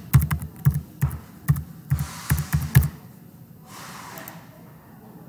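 Computer keyboard typing: a quick run of about ten keystrokes over three seconds as a ten-digit phone number is keyed in, then the typing stops.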